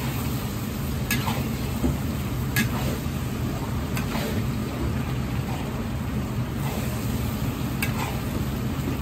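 Commercial gas wok burner running with a steady roar under a wok of spaghetti simmering and sizzling in its cooking liquid. A few sharp clicks come from a utensil knocking the wok as the noodles are stirred.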